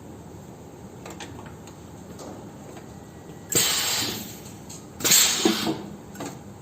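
Hydraulic-pneumatic clinching press cycling: two sharp hisses of compressed air about a second and a half apart, the second louder and choppier, as the press strokes and returns.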